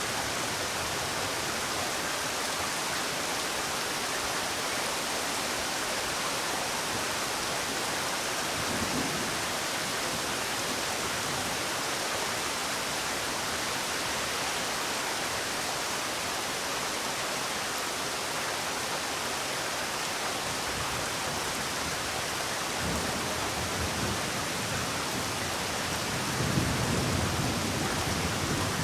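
Steady rainfall hissing evenly, with a low rumble that swells briefly once and again more strongly near the end.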